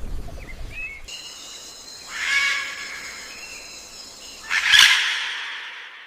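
Birds calling: short rising chirps, then a sustained call with a louder swell about two seconds in, and a sharp, louder burst near five seconds that fades away.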